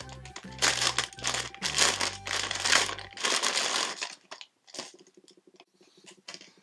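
A clear plastic packaging bag crinkling as a squishy toy is unwrapped from it. The crinkling is loud for about the first four seconds, then drops to faint rustling.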